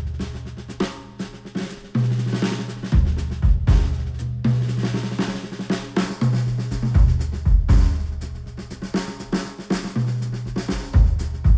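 Instrumental music with a busy drum kit and deep bass notes that change every second or two, played back through a Sennheiser headphone and picked up by microphones.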